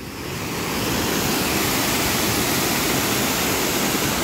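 Water pouring over a curved concrete spillway and churning white at its foot: a steady, really loud rushing that grows louder over the first second.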